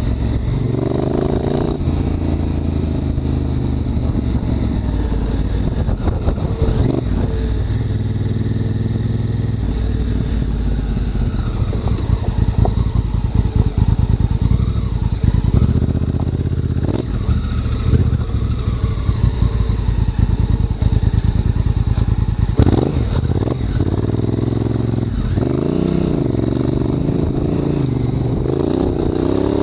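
Honda Africa Twin CRF1000L's parallel-twin engine running under way, its pitch rising and falling as the throttle opens and closes. A few sharp knocks come through, twice in the second half.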